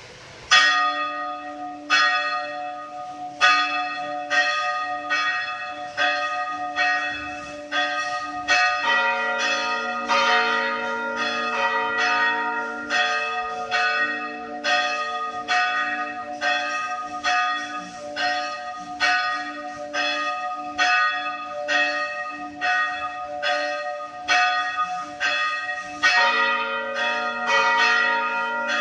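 Church bells rung to announce a funeral mass. The strikes repeat with a long ring after each. From about nine seconds in a second, lower-pitched bell joins, and the strokes overlap into a continuous peal.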